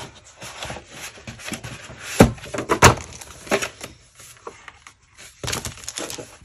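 Paper craft supplies and their packaging being handled on a table: scattered rustling and light clicks, with two sharp knocks a little after two seconds in and a longer rustle near the end.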